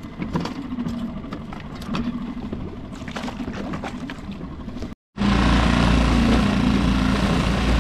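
Scattered clicks and knocks of gear being handled in a fishing kayak's cockpit, then, after a brief cut, a loud steady rush of wind and water spray along the moving kayak's hull with a low drone.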